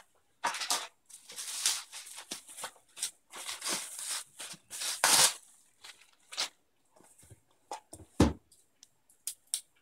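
Plastic bubble wrap rustling and crinkling in irregular handfuls as a small cardboard box is pulled out of its bubble-wrap bag, with a single low thump near the end.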